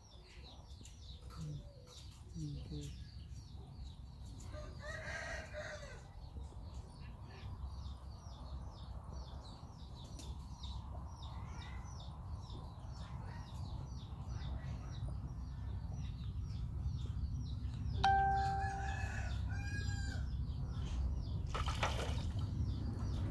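Chickens nearby, a rooster crowing once past the middle with a held, tonal cry, among many small high chirps. A low steady rumble grows louder underneath.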